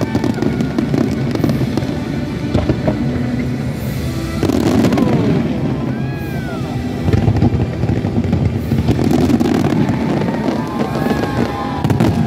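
Large fireworks display: a dense, continuous barrage of bangs and crackling, with music playing alongside.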